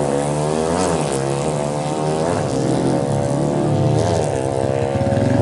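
Bored-up 273cc Honda Tiger four-stroke single-cylinder drag bike engine revved in short throttle blips, the revs rising and falling about four or five times between a fast idle.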